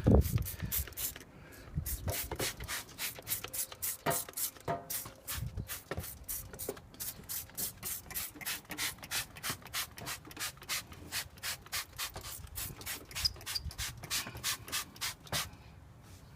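A rag rubbing quickly back and forth over engine-bay surfaces, wiping off degreaser in an even rhythm of about three to four strokes a second that stops shortly before the end.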